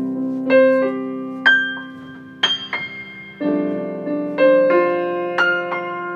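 Piano played as a four-hands duet: single melody notes struck about once a second and ringing out over held low chords, with the harmony changing about halfway through.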